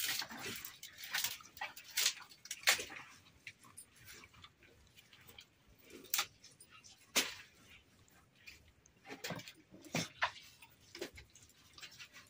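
Dry wooden plank being split and torn into kindling by hand: a run of irregular sharp cracks and snaps of splintering wood, the loudest a little under 3 seconds in and about 7 seconds in.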